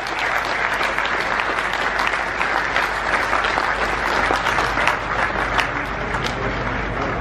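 Crowd applauding: a dense, steady patter of many hands clapping.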